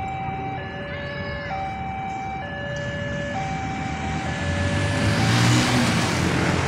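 Railway level-crossing warning alarm sounding two tones that alternate higher and lower about once a second, dying away about five seconds in as the crossing reopens. A group of motorcycle engines then revs up and pulls away across the tracks, the loudest sound near the end.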